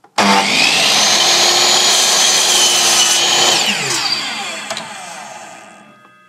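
Electric power tool motor running at full speed with a high whine, then switched off about three and a half seconds in, its pitch falling as it winds down and fades out.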